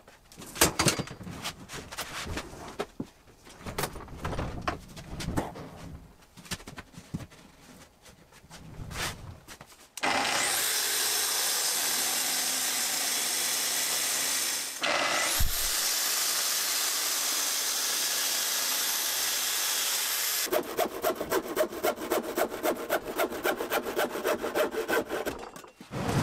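Knocks, scrapes and clatter of workshop units being shifted about. Then a Festool cordless plunge-cut track saw runs on its guide rail for about ten seconds, cutting through a plywood cabinet's base, and stops suddenly. A fast rhythmic scraping follows, about five strokes a second.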